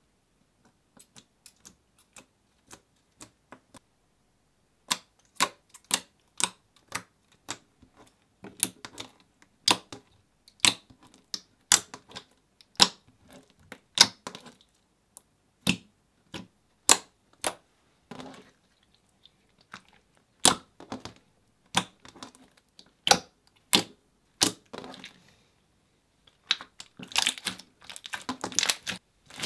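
Clear slime squeezed and folded by hand, giving sharp wet clicks and pops. They come faint and scattered at first, then about one or two a second, and run together into a dense crackle near the end.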